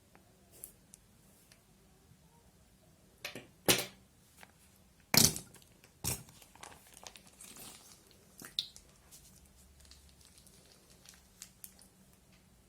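Plastic crinkling and rustling as it is handled, in scattered bursts. The three loudest crackles come around the middle, with smaller crackles after them.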